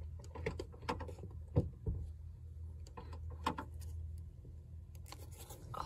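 Half a dozen irregular clicks and knocks from a Dodge car's door handle and latch being tried without the door opening, the loudest about a second and a half in, over a low rumble that fades near the end.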